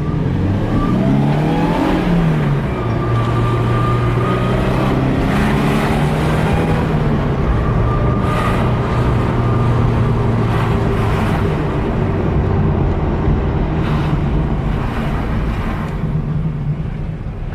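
Subaru BRZ's supercharged 2.0-litre flat-four engine pulling away, its pitch rising and then dropping at a gear change about two seconds in. It then runs steadily under light throttle, with a faint high steady tone coming and going.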